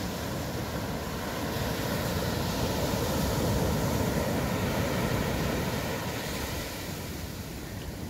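Surf breaking and washing up on a sandy beach, a steady wash of noise that swells about two seconds in and eases off near the end.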